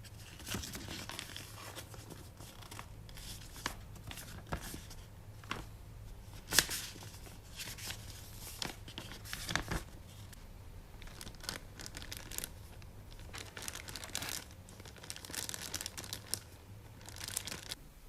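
Packaging being unwrapped by hand: plastic and paper crinkling and tearing in irregular bursts, with scattered knocks and clicks, the sharpest about six and a half seconds in.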